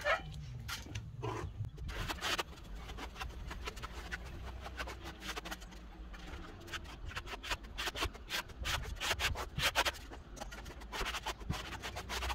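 Plastering trowel scraping monocouche render onto cement board, in a run of short, irregular strokes.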